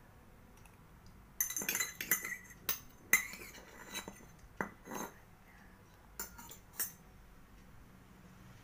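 Metal spoon clinking and scraping against a stainless steel bowl in irregular clusters of sharp clicks with a bright ring, beginning about a second and a half in, then sparser taps until near the end.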